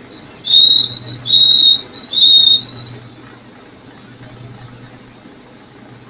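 A loud two-tone signal sounded by the window-side bird-training panel: steady high and low tones alternating, about seven notes, stopping abruptly about three seconds in.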